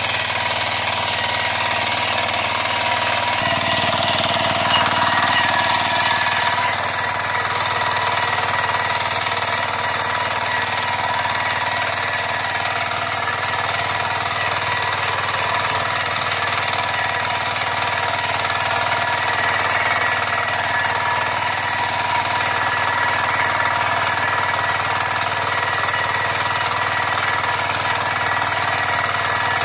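9 hp mini tiller's engine running steadily under load, driving the tiller as its bed-maker attachment cuts through the soil.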